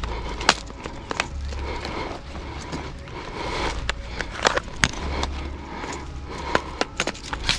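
Rustling and handling noise of a person shifting about among dry pine needles and brush, with scattered sharp clicks and a low rumble.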